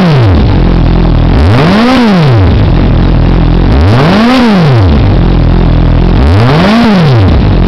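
Suzuki GSR750's inline-four engine breathing through a Yoshimura aftermarket exhaust, idling and blipped sharply on the throttle. It falls back from one blip at the start, then gives three more quick rev-and-drop blips about two and a half seconds apart, settling back to idle between each.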